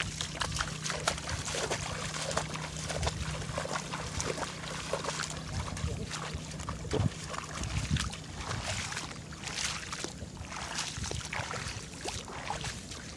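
Flood water splashing and sloshing in many small, irregular splashes as people wade and work their hands in waist-deep water.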